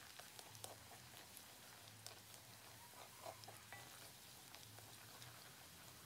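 Chopped garlic sizzling faintly in hot oil in a wok, with scattered small crackles and the light scrape of a slotted spatula stirring it.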